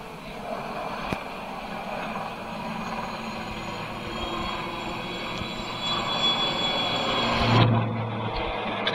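Military IAR 330 Puma helicopter flying low overhead, its turbine engines and rotors running: a steady rush with a high whine that grows louder after about four seconds. Near the end the sound changes abruptly.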